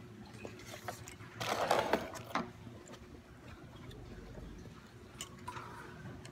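Handling noise at a dining table: a short rustling, crinkling burst about a second and a half in, then a few light clicks and taps of plastic, over a steady low hum.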